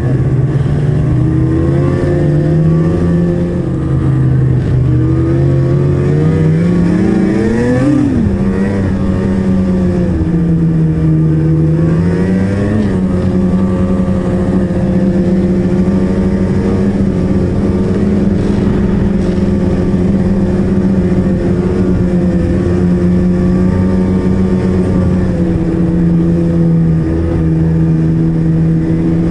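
Ski-Doo snowmobile's two-stroke E-TEC engine running at trail speed, heard from the rider's seat. It revs up sharply about eight seconds in and settles to a steady, higher note, with a short rise in revs again around twelve seconds.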